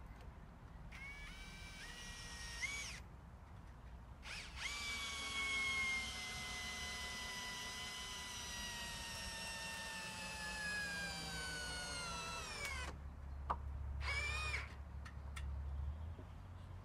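Power drill running in three bursts: a short one with stepped changes in speed, then a long run of about eight seconds whose whine slowly drops in pitch as the motor slows under load, then a brief final burst. A low hum comes in near the end.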